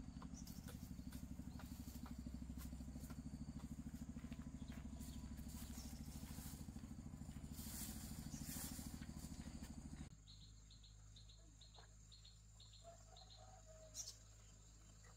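A small engine running steadily with a fast, even low pulse. About ten seconds in it cuts off abruptly, leaving a quiet background with faint, repeated high chirps.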